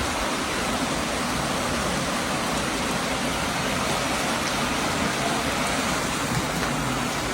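Steady, even rushing of water, heavy rain or fast floodwater, with no change in level.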